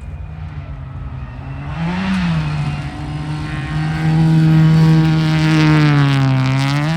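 Rally car engine at high revs, approaching and growing louder, with a quick rise and fall in pitch about two seconds in, then a dip in pitch and a sharp blip near the end.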